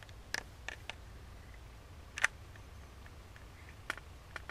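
A few sharp clicks and taps, the loudest a little over two seconds in, over a low steady rumble: handling noise as the camera is moved inside a fabric hunting blind.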